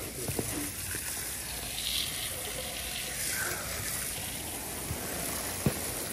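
Power-washer wand spraying water onto a car's body panels and window: a steady hiss of spray, with a sharp click near the end.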